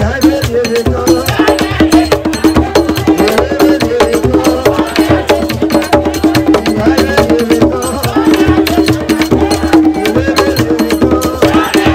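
Traditional Haitian Vodou music: a busy drum and struck-percussion rhythm under singing, with a long held note through much of it.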